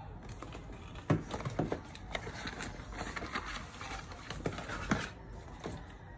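Cardboard headphone box being handled and unpacked: the insert is pulled out and a coiled cable taken from it, with light knocks, clicks and rustling, the sharpest knock about a second in.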